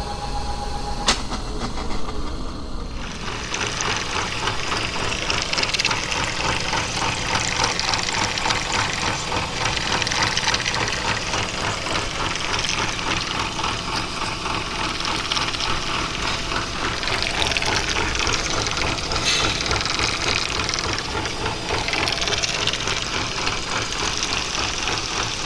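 Milling machine cutting a keyway into a metal gearbox shaft with a 1¼-inch roughing end mill under flood coolant: a steady cutting noise with a fast, even rhythm. It comes in about three seconds in, after a low machine hum and a single click.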